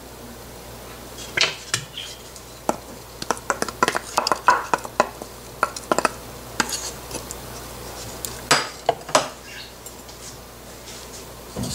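Wooden spoon scraping paste out of a bowl and knocking against the bowl and an aluminium pressure cooker: a run of irregular clicks and taps.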